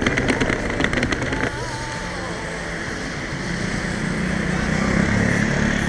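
Rolling suitcase wheels clattering rapidly over brick paving. About a second and a half in it cuts to steady outdoor street noise with a low traffic hum that swells toward the end.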